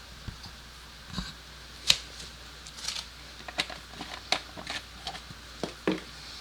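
Scattered light clicks and knocks of small objects being handled, the sharpest about two seconds in; no engine running.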